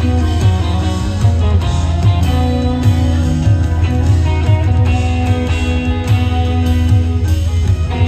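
Rock band playing live: an electric twelve-string guitar being played over a heavy bass line and drums.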